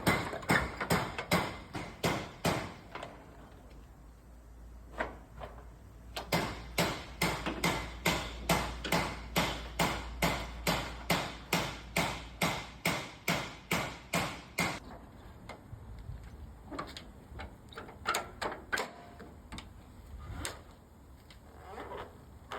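A long run of sharp mechanical clicks or knocks at about two to three a second. They thin out a few seconds in, pick up again as a steady series, and turn sparser and irregular in the last third.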